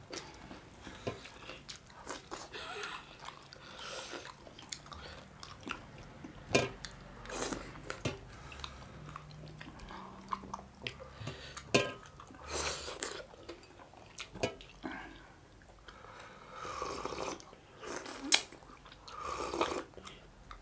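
Close-up eating sounds: wet chewing and lip smacking of fish and dhido eaten by hand, with scattered short clicks of fingers on steel plates. Near the end comes a sip of fish curry drunk from a bowl.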